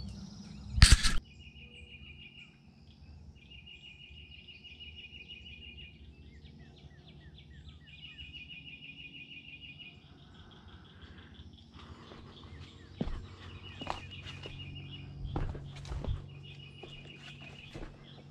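Outdoor woodland ambience: a high, rapid trilling call repeats in phrases of one to three seconds, with a few short falling chirps. A loud thump comes about a second in, and footsteps on rock land a few times in the second half.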